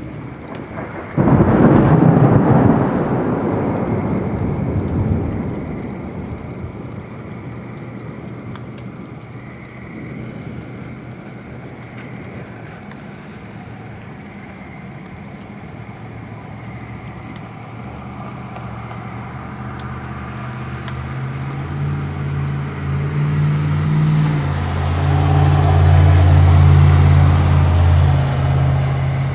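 Thunder over steady rain. A sudden crack about a second in rolls off over several seconds, then a long low rumble builds from the middle and is loudest near the end.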